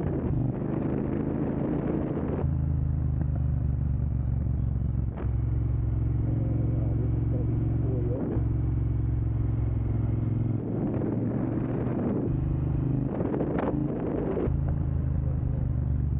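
2022 Triumph Bonneville Speedmaster's 1200 cc parallel-twin running steadily on the move through a Jekill & Hyde adjustable exhaust with its valves set closed, the engine note shifting a few times.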